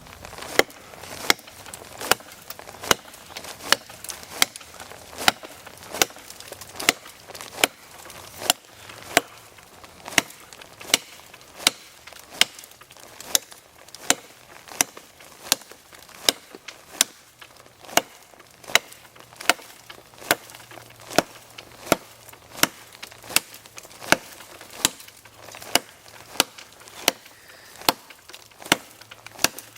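Swamp Rat Rodent 9 large knife chopping: a steady run of sharp blade strikes, a little over one a second.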